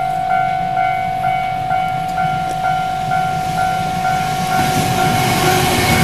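Japanese level-crossing warning bell ringing in a steady rhythm, about two strikes a second, while a container freight train hauled by an EF210 electric locomotive approaches. The rumble of the train swells over the last second and a half as the locomotive reaches the crossing.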